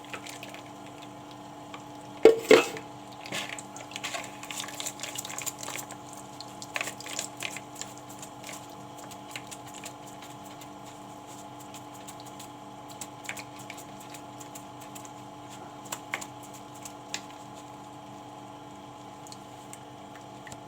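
Blended lemon juice being strained through a sieve: liquid dripping and squishing, with a loud clink of kitchenware about two seconds in and scattered light clicks, over a steady hum.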